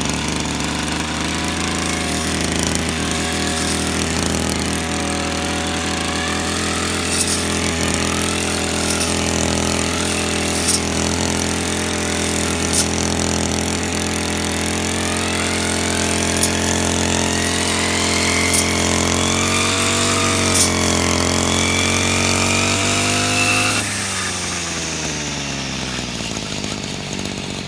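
STIHL petrol brush cutter running at cutting speed, its tipped saw blade mowing grass, the engine pitch wavering with the throttle and a few sharp ticks along the way. About three-quarters of the way through, the throttle is let off and the engine winds down toward idle.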